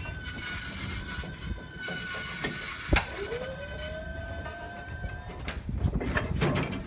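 Machinery of a 1929 Differential Steel Co. electric crane car at work: a steady high whine, a sharp clank about three seconds in, then a whine rising in pitch over about two seconds as the crane gear picks up speed. Scattered knocks follow near the end.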